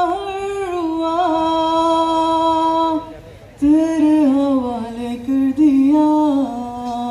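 A man singing a Hindi film song unaccompanied into a microphone through a PA, drawing out long held notes with small ornamental turns. He breaks off briefly about three seconds in, then sings on.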